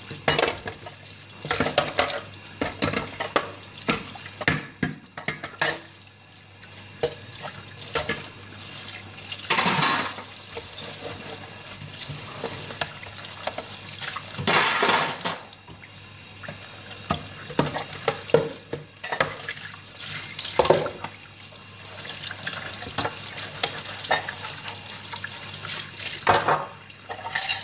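Washing up at a kitchen sink: tap water running and splashing, with dishes and utensils clinking against each other and the basin. Two longer, louder rushes of water come about ten and fifteen seconds in, over a low steady hum.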